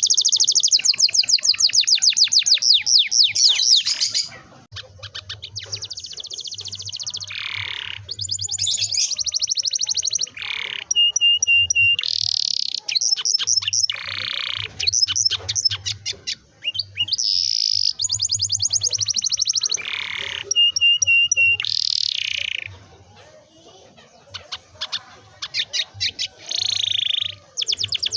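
Domestic canary singing a long, continuous song of fast rolling trills, clear steady whistled notes and notes that sweep downward, with only short breaks between phrases.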